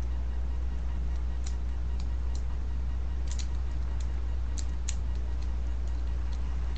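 Scattered small plastic clicks and taps from Bakugan toys being handled and pressed to snap them shut, about eight in all, with a pair close together a little past halfway. A steady low electrical hum runs underneath.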